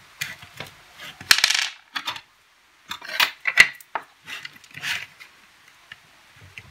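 Light metallic clinks and clicks of a bare screwdriver shaft being handled and set down on a table, along with the plastic power-bank case being turned over. The clinks come in scattered groups, the sharpest about three and a half seconds in.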